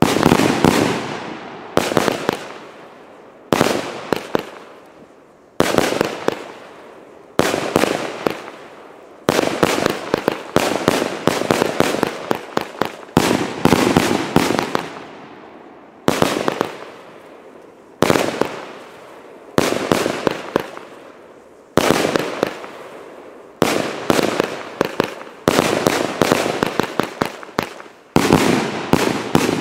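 A fireworks battery firing shot after shot, about one every one and a half to two seconds. Each aerial burst opens with a sharp report and then breaks into a dense crackling of many small pops that dies away before the next shot.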